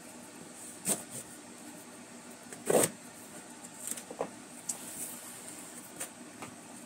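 A cardboard shipping box being opened by hand: a knife cutting through packing tape and the flaps being pulled open. It comes as a few short scrapes and knocks, the loudest about three seconds in.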